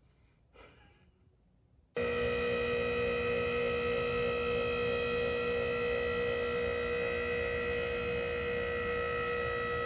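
QuickJack electric hydraulic pump running steadily with a constant whine while it raises the car on the lift, starting suddenly about two seconds in.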